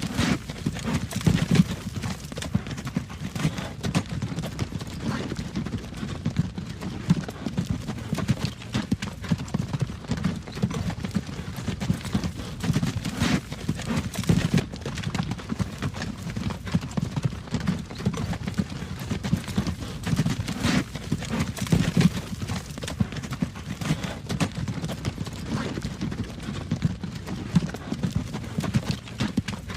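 Horse-drawn wagon on a road: the horse's hooves clip-clop at a walking pace over a steady low rumble of the rolling wagon.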